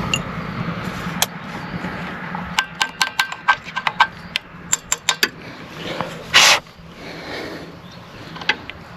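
Small metal clinks and taps from lawnmower carburetor parts being handled, a quick run of them after a steady rumble fades, then one short hiss a little past the middle.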